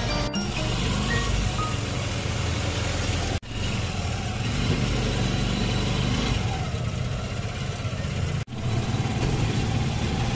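Steady engine and road noise of a moving motor vehicle heard from on board, with a constant low hum. The sound cuts out abruptly twice, for an instant each time.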